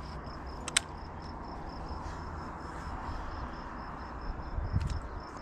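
An insect chirping in a steady pulsed rhythm, about four chirps a second, over a low rumble. A sharp click comes a little under a second in, and a few soft knocks and thumps near the end.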